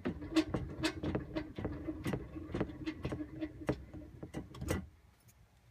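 A jack handle and extensions crank the spare-tire lowering screw (winch) of a 4th-generation Toyota 4Runner counterclockwise, lowering the spare tire: a rapid series of clicks, about four or five a second. The clicks stop about a second before the end.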